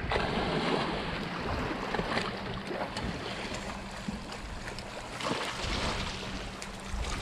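Water rushing and splashing against the hulls of a Hobie Tandem Island sailing trimaran under way, a steady wash.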